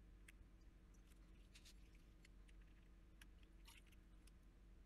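Near silence: faint, scattered small clicks and taps from handling a fountain pen's nib section and syringe, over a low hum.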